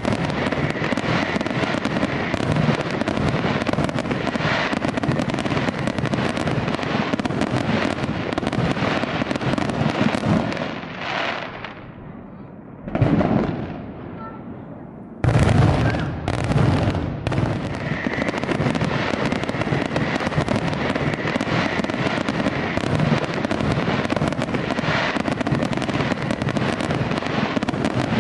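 Aerial fireworks display: a dense, continuous barrage of shell bursts and crackling. About halfway through it dies down to a quieter spell broken by one loud burst, then starts again abruptly at full intensity.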